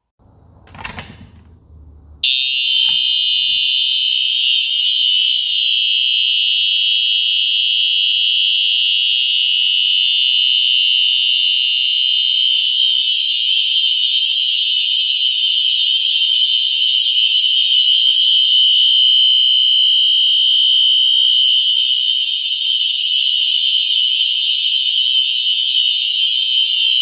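Two fire alarm horn strobes, a Wheelock NS4 and a System Sensor TrueAlert, set to high volume, sounding on continuous coding: a loud, high, steady horn tone that starts about two seconds in and runs without any break or pulse.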